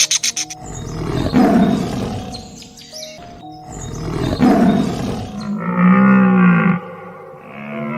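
Two long, rough roaring calls from a large animal, then a cow mooing: one long low moo about five and a half seconds in and the start of another near the end.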